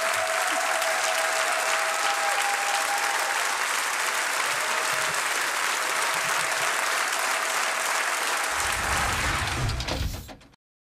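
Studio audience applauding steadily, cut off suddenly near the end.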